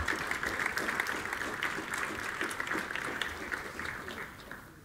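Audience applauding at the end of a talk, the clapping slowly dying away near the end.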